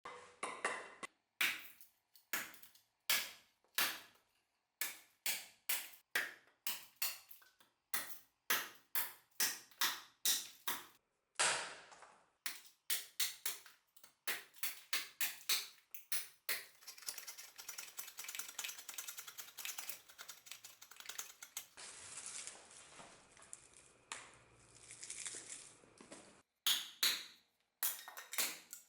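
A series of sharp knocks, about one to two a second, then roughly ten seconds of steady scraping noise, then a few more knocks near the end.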